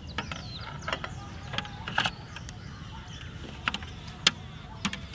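Scattered sharp clicks and knocks as a car's wheel cap is worked off the wheel, the loudest about four seconds in.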